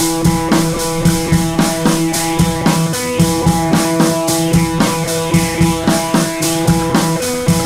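Background music with a steady drum-kit beat over held chord tones.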